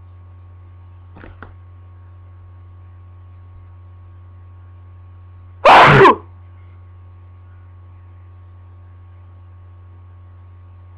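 A single loud sneeze from a person with a head cold, about halfway through, over a steady low electrical hum.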